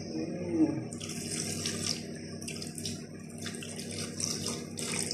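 Soy sauce poured from a bottle into a pot of chicken and broth: a splashing stream of liquid that starts about a second in and runs on with short breaks.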